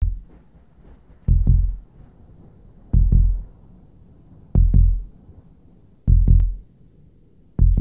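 Heartbeat sound effect: deep double thumps (lub-dub) repeating evenly about every one and a half seconds, over a faint low background drone.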